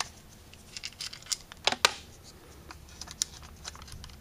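Small metal clicks and scrapes of screws and a tool on an Autolite 4100 four-barrel carburetor as its top is unscrewed: scattered light ticks, with two sharp clicks a little under two seconds in and another about a second later.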